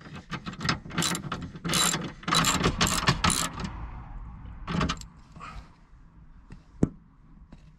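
Hand socket ratchet clicking in quick runs as a bolt is wound in. After about three and a half seconds it thins to a few scattered clicks.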